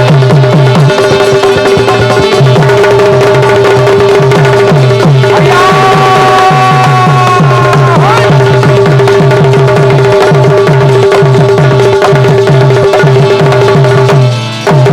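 Instrumental interlude of a Bundeli folk song: a hand drum plays a fast, even rhythm over a steady held drone, and a sustained melody line comes in for a couple of seconds in the middle.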